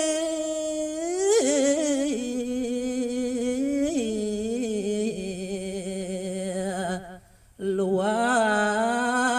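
A single male voice sings Balinese geguritan (tembang) in pupuh Ginada, holding long stretched notes with wavering ornaments and no instrument behind it. There is a brief pause about seven seconds in.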